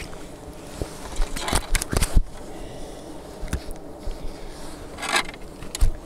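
Handling noise while landing a small crucian carp on a float rod: a quick run of clicks and knocks about two seconds in, then a short rustling burst and a thump near the end as the fish flaps in the hand, over wind noise on the microphone.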